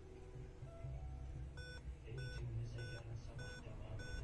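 Dell Inspiron 5520 laptop beeping five times, short even beeps about 0.6 s apart starting a little under two seconds in, over a low hum. This is the five-beep POST error code, which here signals a dead BIOS (CMOS) battery.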